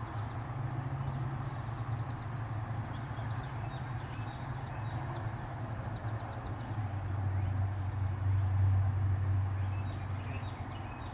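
A steady low hum, swelling louder for a few seconds past the middle, with a run of short high chirps in the first half.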